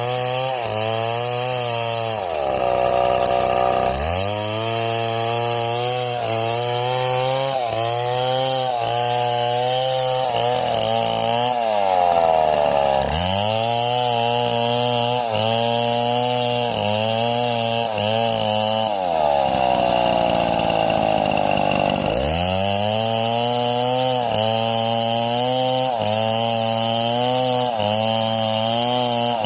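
A chainsaw running under load while cutting wood, its engine note wavering as the chain bites. The engine bogs down deeply twice, early on and again late, then climbs back. It briefly revs high about twelve seconds in.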